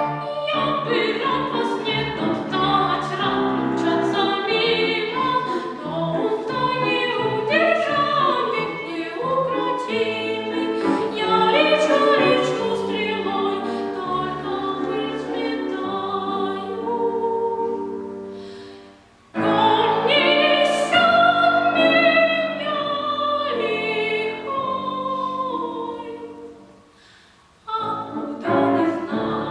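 A child singing in classical academic style with piano accompaniment. The music fades away twice and cuts back in abruptly each time.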